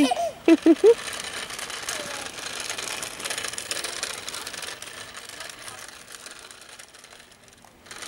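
Small electric motor and plastic gears of a remote-control ladybird toy whirring with a fine rattle while it drives, fading out shortly before the end. A few short, high voice-like sounds come right at the start.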